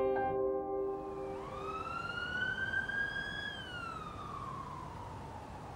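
Emergency vehicle siren wailing in one slow rise and fall over steady background noise, as the last notes of piano music die away in the first second or so.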